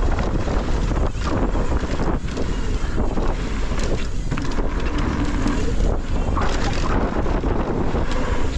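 Heavy wind buffeting the camera microphone: a loud, steady low rumble with scattered rattles and knocks throughout.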